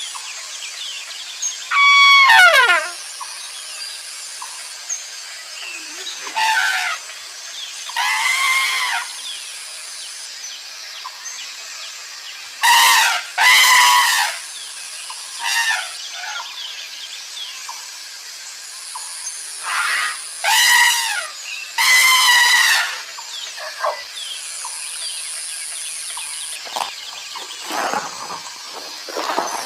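Elephant trumpeting: about ten shrill, squealing calls of roughly a second each, some falling in pitch, the loudest near the start, in the middle and about three quarters through. Underneath runs a steady jungle background of hiss with an insect buzz that comes and goes.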